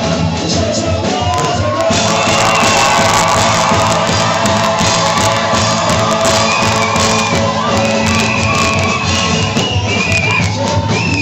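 Live praise music with a congregation singing and shouting along, loud and unbroken.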